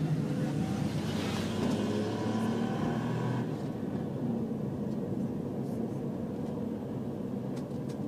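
Car driving, with a steady low engine and road rumble heard from inside the cabin. A faint higher pitched sound rides over it in the first three seconds or so.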